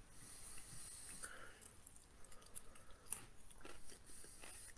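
A person chewing and biting a crunchy snack, faint, with scattered small crunches and clicks and one sharper crunch a little past halfway.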